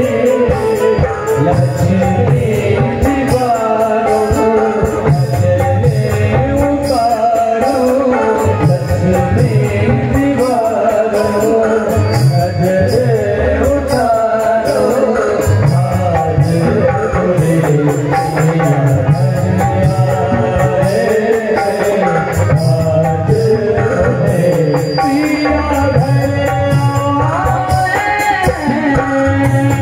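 Live Hindi devotional-style song with a male singer, accompanied by tabla and other percussion keeping a steady beat.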